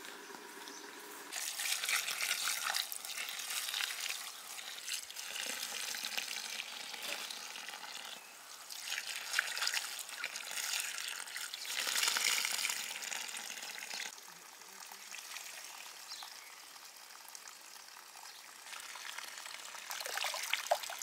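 Water running and splashing in several bursts of a few seconds each, with quieter stretches between.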